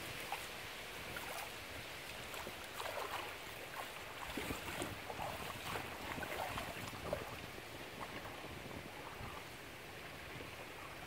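Water splashing and trickling around a hand trailed over the side of a small wooden canoe as it glides along a canal, in small irregular splashes.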